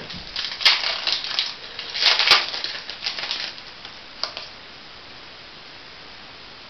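A foil trading-card booster pack wrapper being crinkled and torn open in a few rustling spells, loudest about two seconds in, with a small click a little after four seconds before it goes quiet.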